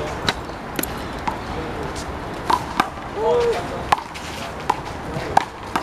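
Rubber handball smacking off the wall and pavement and being slapped by players' hands during a rally: a series of sharp, irregularly spaced smacks.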